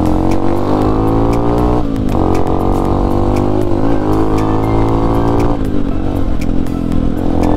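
Hero Impulse's 150 cc single-cylinder engine pulling under way, its pitch climbing, dipping briefly about two seconds in, climbing again, then easing off and leveling out about five and a half seconds in.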